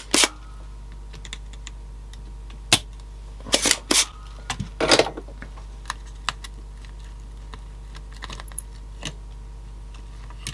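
Small plastic-and-metal parts of a CD player mechanism being handled, with sharp clicks and knocks as the unit and its circuit board are gripped and lifted. A cluster of louder knocks comes a few seconds in, then lighter ticks, over a steady low hum.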